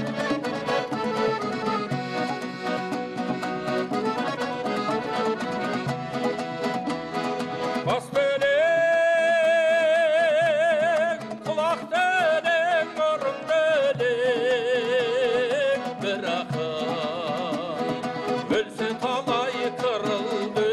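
Kazakh traditional folk music: a fast rhythmic accompaniment, joined from about eight seconds in by a long, held melody line with a wavering vibrato.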